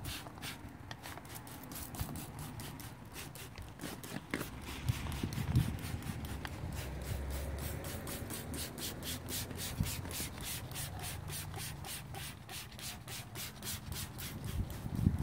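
Detail brush scrubbing the spokes of an alloy wheel: quick, even back-and-forth rubbing of bristles on metal, about five strokes a second.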